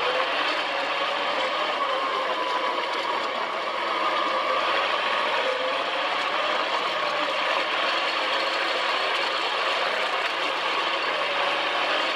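Sand car engine running as the buggy drives over sand dunes, its pitch slowly rising and falling with the throttle.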